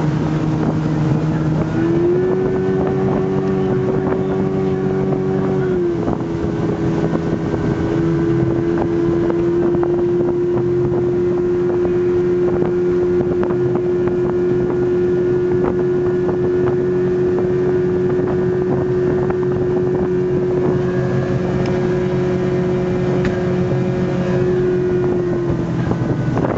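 Johnson 115 outboard motor running at cruising speed, with wind on the microphone. Its pitch rises briefly about two seconds in, settles back a few seconds later, holds steady, then dips slightly near the end.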